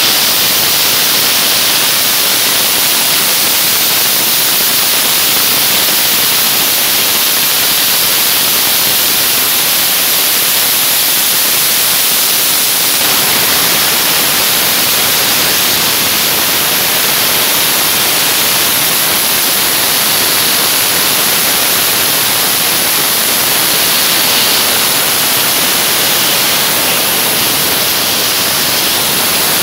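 Dry-ice blasting gun firing a loud, steady hiss of compressed air and dry-ice pellets, blasting limescale off stainless-steel machinery.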